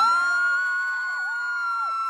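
A long, high-pitched scream of excitement from girls in a crowd, held on one steady pitch, with a second, lower scream wavering beneath it.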